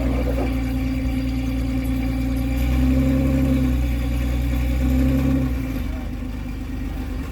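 Off-road vehicle's engine running at low speed. It grows louder about three seconds in and eases off again near the end.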